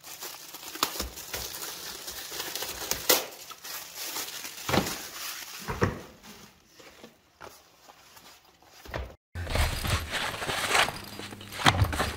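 Handling noise from unpacking a canvas chainsaw case: plastic wrapping rustling and crinkling, with scattered light clicks and knocks. It goes quieter after the middle, then a louder low rustling sets in near the end.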